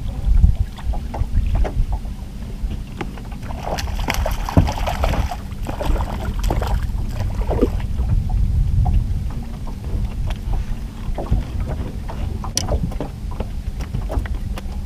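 Boat on the water with wind rumbling on the microphone and a steady low motor hum. Scattered clicks and knocks of handling run through it while a hooked kokanee is brought in, busiest about four to six seconds in.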